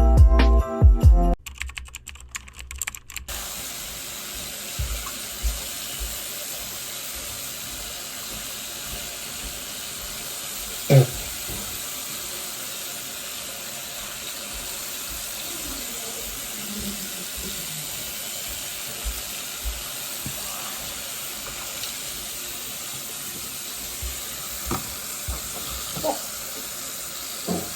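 Tap water running steadily into a sink, with scattered small clicks and knocks and one sharper knock about a third of the way in; a jingle-bell music tail ends in the first second or so.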